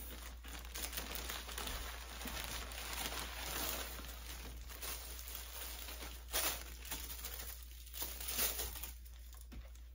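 Crinkling and rustling of plastic packaging and clothing as a garment is taken out and unfolded by hand, with two sharper crackles about six and eight seconds in.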